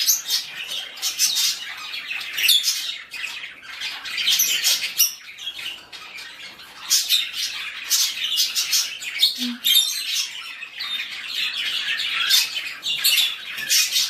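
Canaries chirping: many short, high calls in quick, irregular succession.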